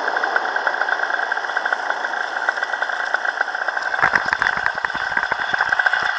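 Paramotor engine running steadily at low throttle on the landing approach. From about four seconds in it is joined by irregular thumps and rustling as the pilot's feet touch down and run through long grass.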